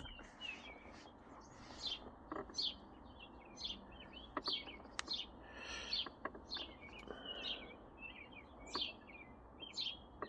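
Small birds chirping in quick, repeated short notes, with a few faint clicks.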